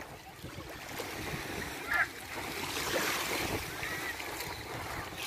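Wind and small waves on the open water of a bay, a steady rushing wash with wind buffeting the microphone. A brief distant voice calls out once about two seconds in.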